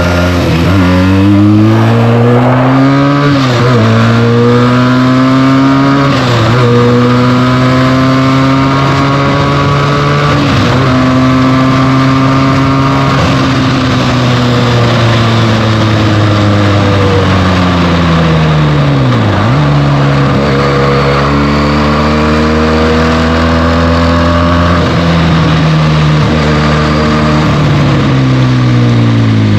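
Benelli TNT 300's parallel-twin engine on its stock exhaust, pulling up through the gears with two upshifts in the first several seconds. It then cruises, and the revs fall away to a sudden dip about two-thirds through before it accelerates again. Wind rushes throughout.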